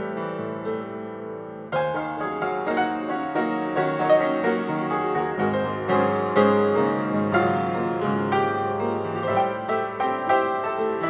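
Background piano music, with a softer stretch at the start and a new, fuller phrase coming in about two seconds in.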